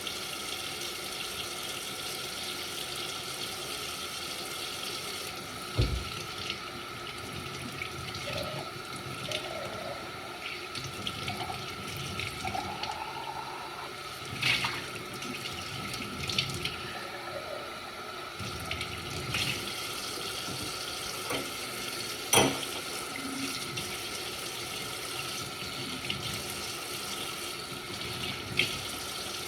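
Water running from a kitchen tap into a sink while dishes are washed, with a few sharp knocks and clinks of dishes, the loudest about 22 seconds in.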